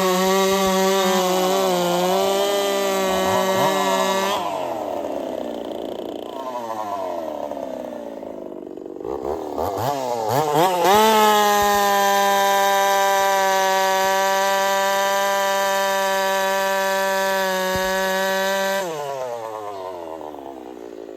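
Two-stroke chainsaw held at full throttle at a steady high pitch, then let off about four seconds in, the revs falling to an uneven low running. About eleven seconds in it revs back up and holds wide open for about eight seconds before the throttle is released and the engine winds down near the end.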